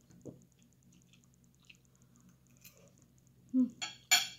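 Eating at the table: a metal fork on a ceramic plate, mostly faint, with two short, loud scrapes close together near the end.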